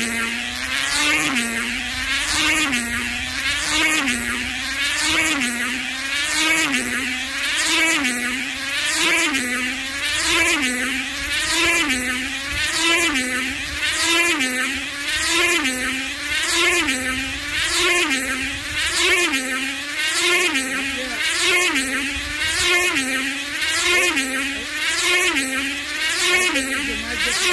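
Tether model race car's small glow-fuel two-stroke engine running flat out as the car laps the circle. Its high whine rises and falls in pitch and loudness once per lap, about every 1.3 s.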